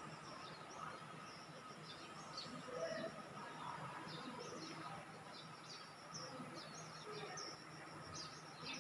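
Small birds chirping in short, repeated calls, over a faint steady background hum.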